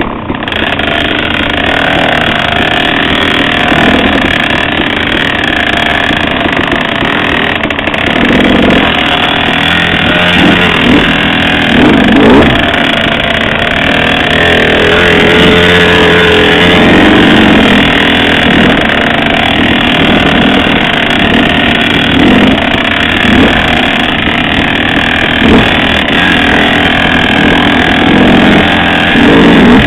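KTM 50 mini dirt bike's small two-stroke engine running and revving up and down as it is ridden through slick mud, the revs rising and falling over and over.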